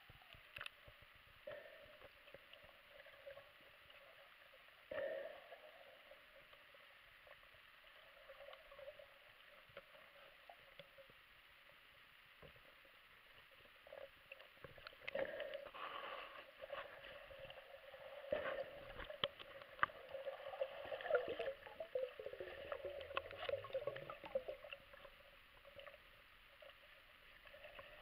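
Rollei Action Cam II in its waterproof housing, handled underwater: faint knocks, clicks and rubbing against the housing, with one clear knock about five seconds in and a busier run of clicks and scraping in the second half.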